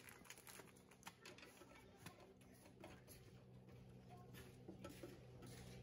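Near silence: a few faint clicks and light plastic handling sounds as a conduit bushing is fitted onto the end of the conduit in a breaker panel, over a faint steady low hum.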